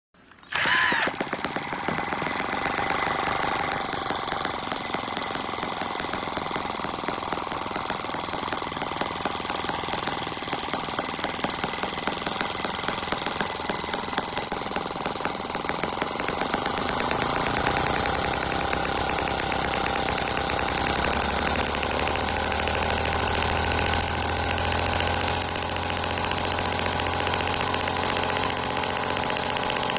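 Miniature four-stroke water-cooled gasoline model engine running steadily at a fast idle, a rapid even firing rhythm with light mechanical clatter. It comes in sharply about half a second in, and a deeper low hum joins it a little past the middle.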